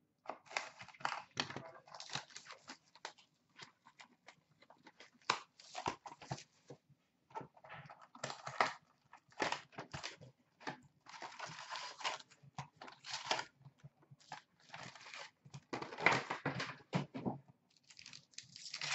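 A 2016-17 Upper Deck SP Authentic hockey hobby box being opened by hand: the cardboard lid tearing and scraping open, a paper insert sheet rustling, and card packs crinkling and clicking as they are lifted out. The sound is a string of short, dry scrapes and crackles.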